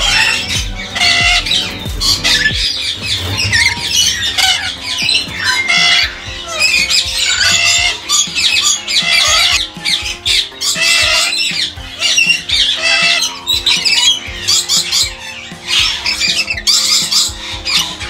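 Lories and lorikeets in an aviary, among them rainbow lorikeets, screeching and chattering: many shrill calls overlapping, with only brief lulls.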